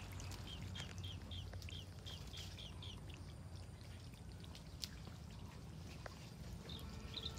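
A bird chirping in the background: a quick run of short, high notes, about four a second, for the first few seconds and a few more near the end, over a steady low rumble and faint trickling of water.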